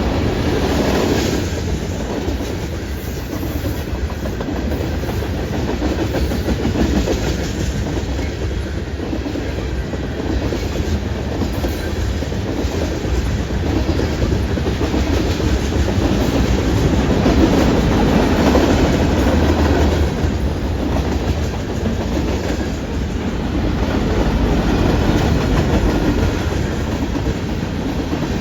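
A CN freight train's cars rolling steadily past at close range, with a low rumble and wheels clacking over the rail joints.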